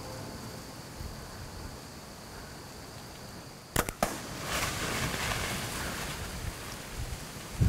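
Compound bow shot about four seconds in: a sharp snap as the string is released, a second sharp crack a moment later, then a brief rushing rustle, over steady wind.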